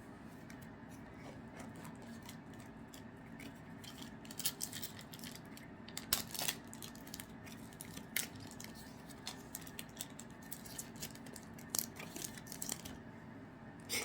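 Trading cards being handled and flipped through: a scattered run of light clicks and rustles, busiest from about four seconds in until near the end.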